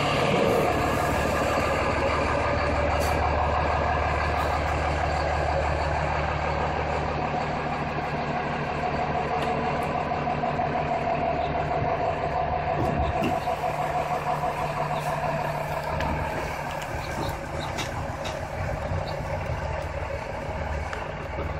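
Dynamax motorhome's engine running steadily as the coach rolls slowly past, a low, even hum.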